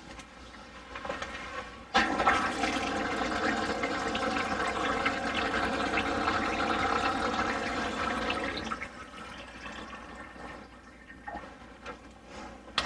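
Water running from a sink faucet into the basin and down a newly plumbed drain, being tested for drainage and leaks. The water comes on suddenly about two seconds in and shuts off after about seven seconds.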